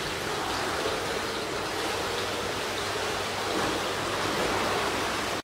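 Steady rushing of running water in an indoor swimming pool hall, an even hiss with no breaks.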